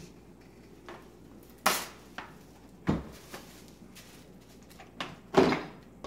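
Plastic cling wrap being pulled from its box and stretched over a metal sheet pan: a handful of short crinkling rustles, the loudest about five seconds in.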